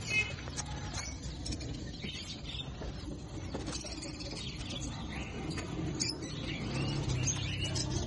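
Many small caged birds chirping over one another in short, overlapping calls, over a steady low rumble.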